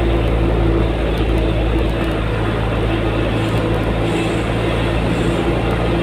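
Steady engine and tyre noise from inside a moving car's cabin, a low even hum with no changes.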